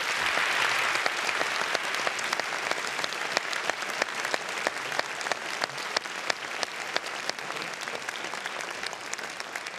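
Audience applauding: a dense clatter of many hands clapping, loudest at first and easing off a little toward the end.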